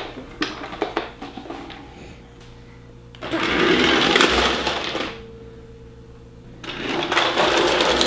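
Octonauts Gup-K remote-control toy vehicle's electric motor whirring as it drives across a hardwood floor. It runs in two spells: about three seconds in for roughly two seconds, then again from about seven seconds in.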